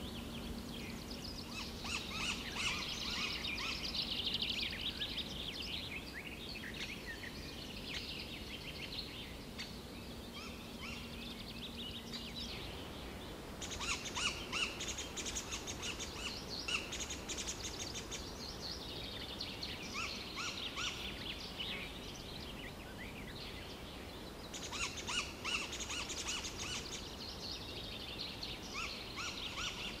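A small songbird singing in several phrases of rapid, high notes, some falling in pitch, each a few seconds long with pauses between. A faint steady low hum runs under the first twelve seconds and then stops.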